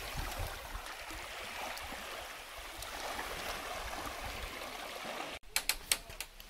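Shallow water running over pebbles into a lake, with small waves lapping at the stony shore. About five seconds in it cuts off suddenly and a few sharp clicks follow.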